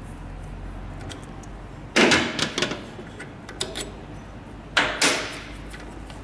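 Metal tools and injector parts clanking and clinking as the solenoid valve is taken off a Scania EUI unit injector held in a bench vise. There is a loud clatter about two seconds in, two sharp knocks close together near five seconds, and lighter ticks between, over a low steady hum.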